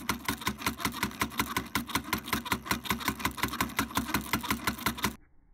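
Miniature hand-cranked Massey power hammer striking a thin steel rod in rapid, even blows, about seven a second, until it stops abruptly near the end.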